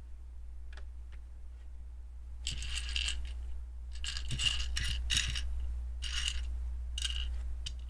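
Loose plastic LEGO pieces clattering and clicking against each other as they are handled, in several short spells starting about two and a half seconds in.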